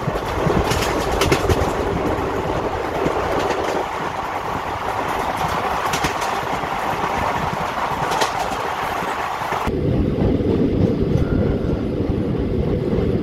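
Passenger train coach running along the track: a steady rumble of wheels on rail with faint clickety-clack. The sound changes abruptly about ten seconds in.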